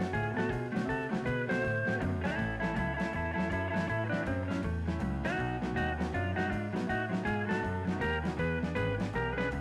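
Background music: an upbeat guitar-led tune with a walking bass line and a steady beat, in a bluesy swing style.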